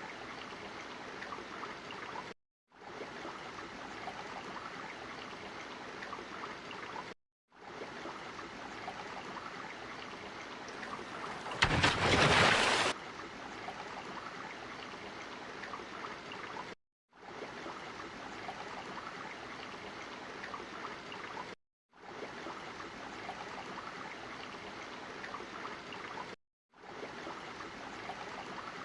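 Looped water sound effect: a steady rush of flowing water, broken by a short silent gap every four to five seconds. About halfway through there is a louder rush of noise lasting about a second.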